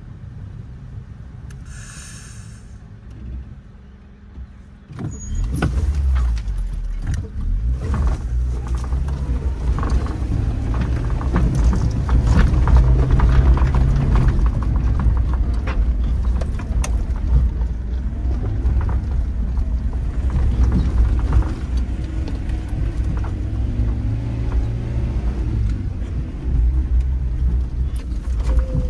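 Suzuki Jimny's engine pulling under load on a rough, steep dirt trail, heard from inside the cab, with frequent knocks and rattles from the body and suspension over rocks and ruts. It is quieter for the first few seconds, then much louder from about five seconds in.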